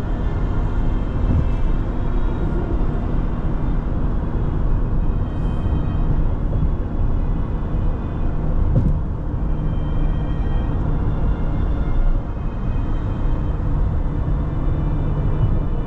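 A car in motion: a steady rumble of road and engine noise, with faint orchestral music underneath.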